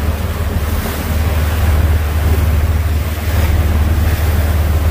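Wind buffeting the microphone and the rush of a sport-fishing boat's churning wake as the boat runs under way, over a steady low rumble.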